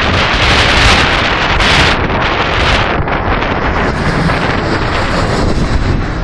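Boeing 737-800 jet airliner on final approach, its CFM56 engines roaring as it passes low overhead with gear down, mixed with heavy wind buffeting on the microphone. A high engine whine comes in about halfway through as the aircraft goes over.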